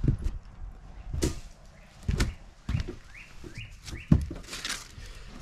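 Footsteps thudding on old wooden porch boards, about one step a second, the heaviest about four seconds in, with a few short rising bird chirps.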